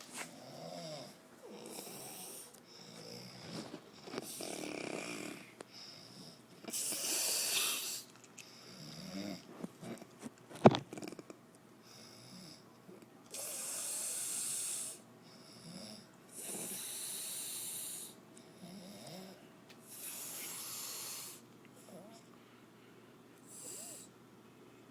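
Snoring: a long noisy breath every few seconds, some with a low rattle, and one sharp click about ten seconds in.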